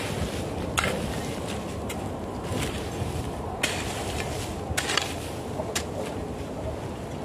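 A hoe blade chopping into dry, hard soil to dig a hole: about half a dozen sharp strikes, roughly one a second, over a steady low background noise.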